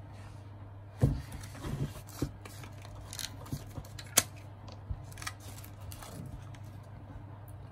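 Paper rustling and crinkling with sharp clicks and taps as a folded paper note is worked out from under a rubber band wrapped around a broken smartphone, with a sharp snap about four seconds in. A steady low hum runs underneath.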